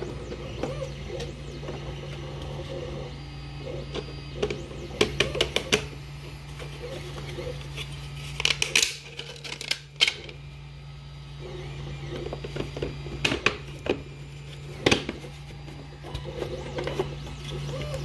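Hard plastic clicks and knocks as the 3D-printed case's fan grille and top cap are handled and pressed into place. They come in scattered clusters, over a steady low hum.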